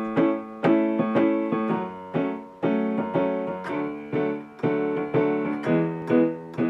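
Piano music: chords struck about twice a second, each fading away, over a steady low note. It is the instrumental intro to a children's song, before the singing comes in.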